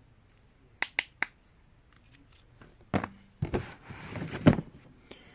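Small objects being handled: three sharp clicks about a second in, then a run of knocks and rustling, the loudest knock near the end.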